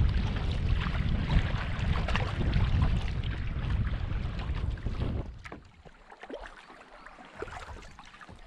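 Water sloshing and splashing against a kayak-mounted camera sitting at the waterline, with wind buffeting the microphone, for about five seconds. Then the sound drops to quieter lapping with a few small drips and splashes.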